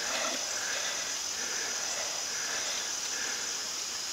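Insect chorus of crickets: a steady high-pitched trilling with fainter lower pulses repeating every half second or so.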